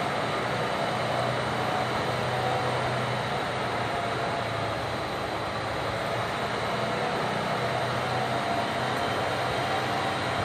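Electric heat gun running: a steady blower rush with a faint motor hum, heating a wire for soldering.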